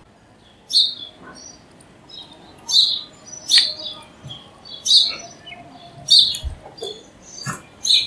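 House sparrow chirping: about half a dozen short, sharp chirps at irregular intervals, with fainter chirps between them.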